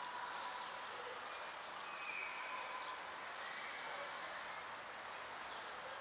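Steady outdoor background noise with a few faint, scattered bird chirps.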